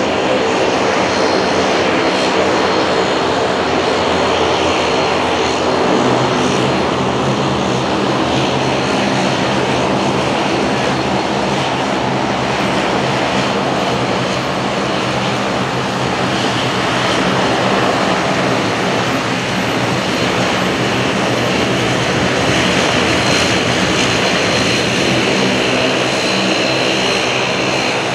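Bombardier Q400 turboprop taxiing, its two Pratt & Whitney PW150A engines and six-bladed propellers running steadily: a continuous drone made of several even propeller tones, with a thin high whine above it.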